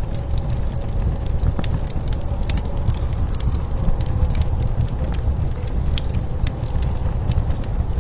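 Wood fire crackling with irregular sharp pops over a steady low rumble of blizzard wind.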